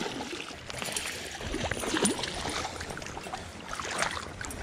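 Irregular splashing and sloshing as a hooked smallmouth bass thrashes at the surface of the water, over the steady rush of a fast-flowing creek.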